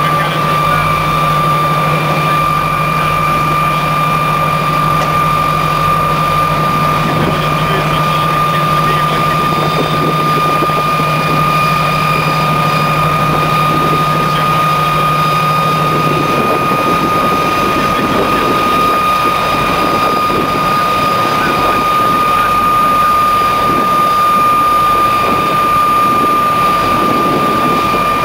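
MiG-15UTI jet trainer's turbojet engine running at idle on the ground, a steady high whine. A lower hum beneath it stops about 16 seconds in.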